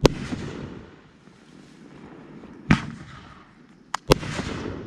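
Bangs from the White Tiger Fireworks "Now You See It" aerial firework overhead: one sharp bang at the start, another about two and a half seconds later, and a quick double bang near the end. Each bang is followed by a brief fading tail.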